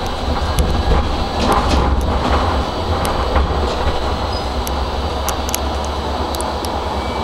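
Karlsruhe tram running along street track, heard from inside behind the cab: a steady low rumble of wheels and running gear with a faint high whine and scattered sharp clicks and rattles.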